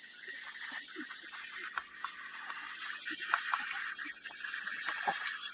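Dawn ambience on open grassland: a steady high-pitched chorus that swells in the middle, with scattered faint ticks and a few faint short low calls.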